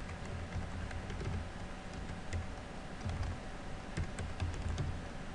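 Typing on a computer keyboard: irregular key clicks, a few a second, each with a dull low knock.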